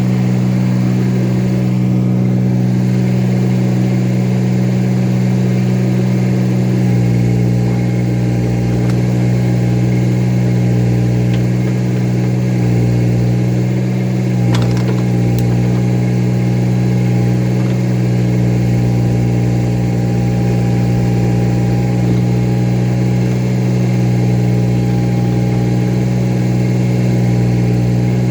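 A tractor engine runs steadily at a constant pitch. About seven seconds in, a deeper rumble and a faint higher whine join it, and there is a single sharp click about halfway through.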